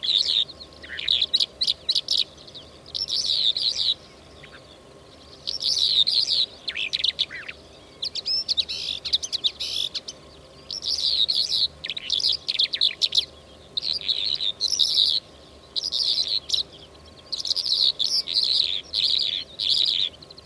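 A lark singing, the bird known to Arab hunters as mutawwaq or zar'i al-walwal: repeated bouts of quick, high twittering notes, each a second or so long, with short pauses between, played as a hunting lure call.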